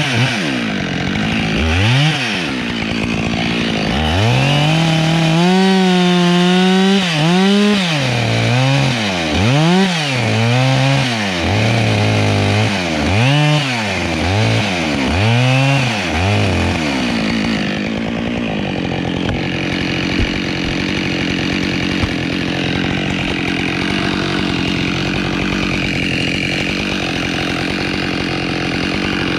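Husqvarna 572XP two-stroke chainsaw revved in a string of throttle blips, its pitch rising and falling again and again, once held near full revs for a couple of seconds. After about seventeen seconds it settles into steadier, slightly quieter running.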